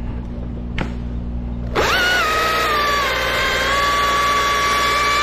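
Chainsaw idling, then throttled up sharply about two seconds in to a loud, high-revving whine. The pitch sags a little about a second later as the chain bites into the wood.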